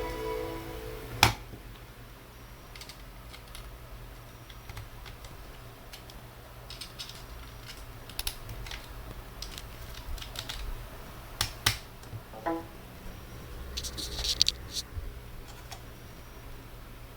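Irregular clicks and taps from an ASUS UX31A laptop being handled, like its keys being pressed, with one sharp click about a second in and a cluster of clicks near the end. A snatch of music ends just at the start.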